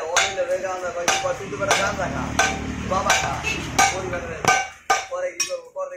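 Hand hammer striking a red-hot iron bar on an anvil plate, a steady run of about nine blows, roughly one every two-thirds of a second. The blows curl the hot bar into a scroll.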